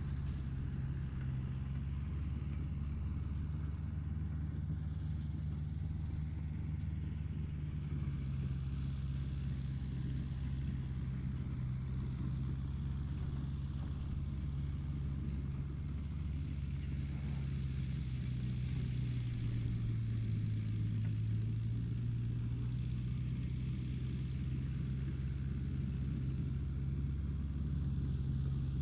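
A steady low engine-like drone with no breaks; its pitch dips briefly about twenty seconds in.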